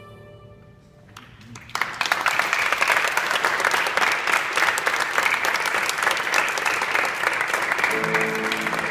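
The last note of two violins dies away, and after a short lull an audience breaks into applause about two seconds in, dense and steady clapping.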